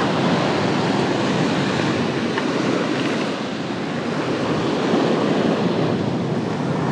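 Ocean surf washing onto a sandy beach: a steady rushing noise, with some wind on the microphone.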